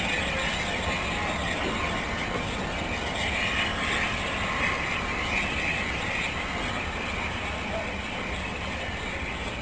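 Steam locomotive letting off steam: a steady hiss with no chuffing.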